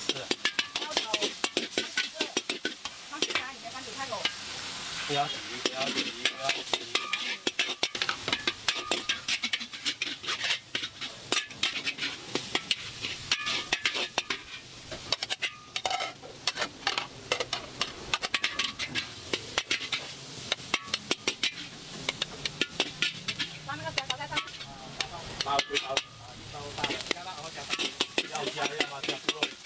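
A metal ladle scraping and knocking against a wok as noodles are stir-fried, with the food sizzling underneath: rapid, irregular scrapes and clanks over a steady hiss.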